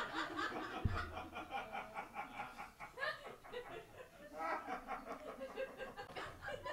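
Small audience laughing and chuckling after a punchline, the laughter slowly dying down. A dull low thump about a second in.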